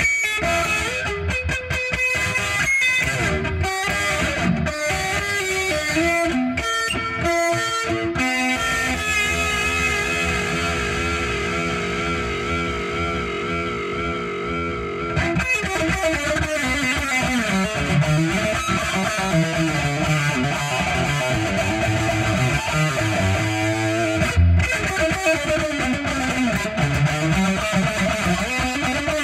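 Electric guitar played solo: quick picked notes at first, then from about eight seconds in long held notes with a wide, even vibrato, and from about fifteen seconds bent and sliding notes.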